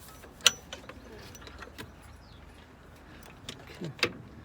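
Sharp metal clinks of a socket tool on the alternator's mounting bolts: one loud clink about half a second in, faint ticks after it, and a few knocks near the end.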